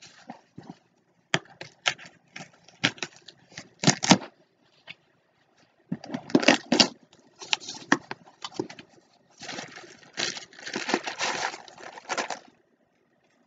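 Cardboard ammunition box being opened by hand: taps, clicks and rustles of the flaps and cardboard, then a plastic bag of loose cartridges crinkling and rustling for about three seconds near the end.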